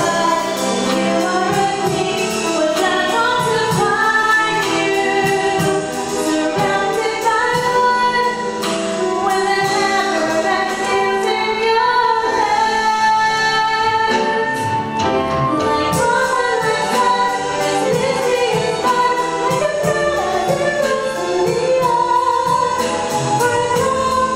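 A woman singing a solo song over musical accompaniment with a steady beat.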